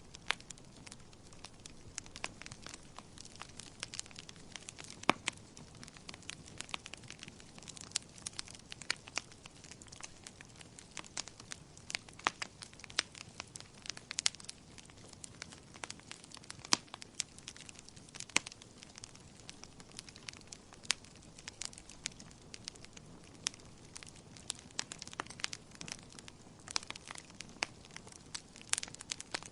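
Wood fire burning in a fireplace, crackling with frequent irregular sharp pops and snaps over a low steady hiss.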